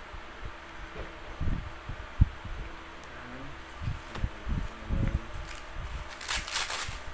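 Handling noise while unpacking a blood pressure monitor: low thuds and bumps from items being set down and moved, with one sharp knock about two seconds in. Near the end comes a brief crinkle of plastic packaging.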